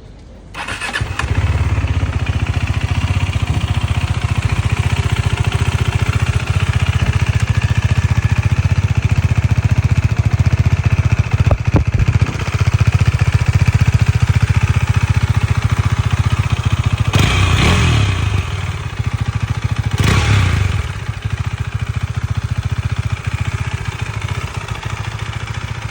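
Husqvarna 401's single-cylinder engine starts about half a second in and settles into a steady idle. It is revved briefly twice, the first time about two-thirds of the way through, then returns to idle.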